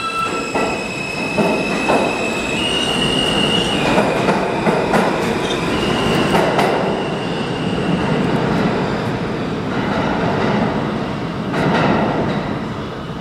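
R160A subway train accelerating out of the station: its propulsion whines in steady tones that step up in pitch, over the loud roar of steel wheels on rail, with clicks as the cars cross rail joints.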